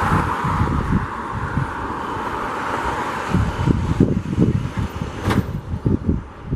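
Wind buffeting the microphone in gusts. A passing road vehicle's hiss fades away over the first few seconds. There is one sharp tick about five seconds in.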